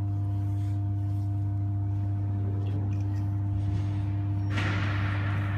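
Deep, steady electrical hum of the energized high-voltage AC resonant test system's reactor and transformer under test voltage, with fainter higher overtones. About four and a half seconds in, a sudden burst of hiss starts and slowly fades.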